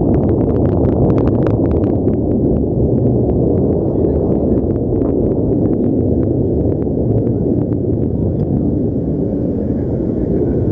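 Delta II rocket's first stage and solid strap-on boosters during ascent: a loud, steady, deep roar with crackling that is dense for the first couple of seconds and then thins out.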